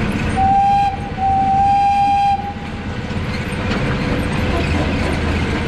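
A miniature zoo train sounds its horn twice, a short blast then a longer one on the same steady pitch, over the running noise of the open passenger car on the track.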